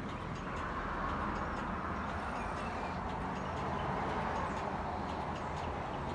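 Steady noise of passing road traffic with a low hum, swelling about a second in and again around four seconds in as vehicles go by.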